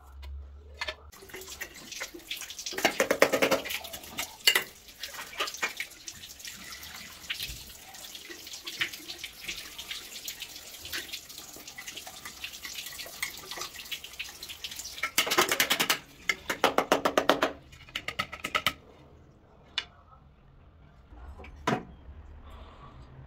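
Water running and splashing into a toilet cistern, with clicks and rattles of the tank's parts being handled. Two bursts of dense clattering come near the end, and then the flow stops, leaving a few single clicks.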